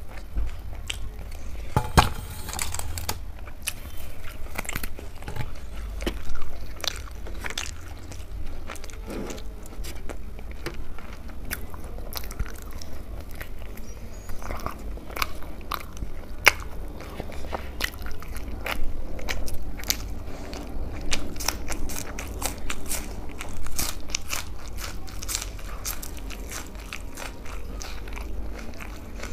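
Crisp tandoori roti bitten and chewed close to the microphone: many sharp crunches and crackles, some louder than others.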